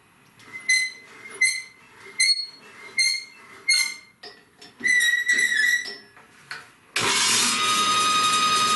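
Short high squeaks repeating about every three-quarters of a second as the table saw's blade-height handwheel is cranked, the last one drawn out. About seven seconds in, the table saw motor switches on suddenly and runs with a steady whine.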